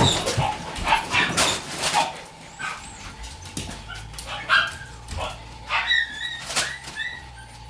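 Shiba Inu puppy whimpering and yipping in short, high-pitched cries that bend in pitch, a few at a time, through the second half. In the first two seconds there is a quick run of clicks and knocks.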